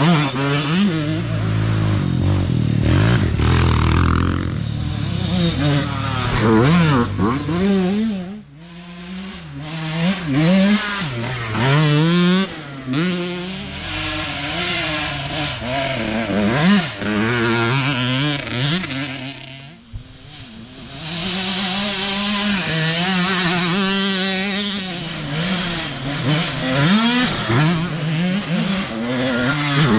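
Youth dirt bike engines revving up and down as bikes pass one after another, with short lulls about eight and twenty seconds in.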